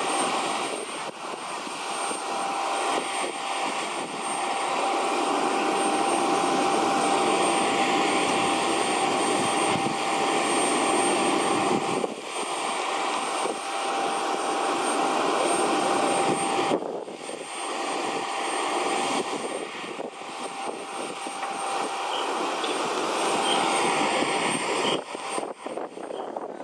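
Steady jet aircraft turbine noise on the apron: a thin steady whine over broad hiss, dipping briefly a few times.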